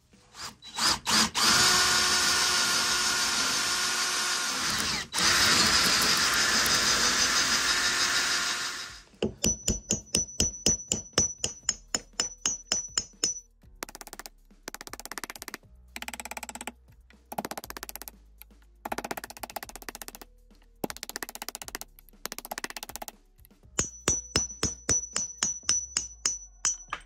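A power tool runs for about eight seconds, with a brief break near the middle. Then come quick runs of sharp hammer strikes on a steel punch, some with a high ring, driving the old wooden handle out of the eye of a rusty club hammer head.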